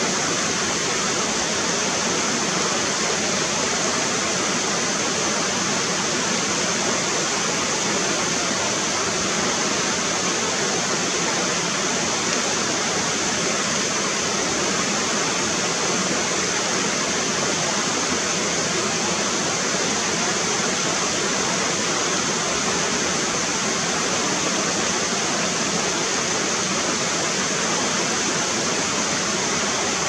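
Stream water rushing over rocks: a steady, unchanging rush with a bright hiss.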